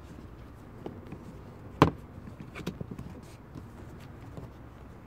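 A sharp click about two seconds in, with a few lighter clicks and taps before and after it, over a steady low background.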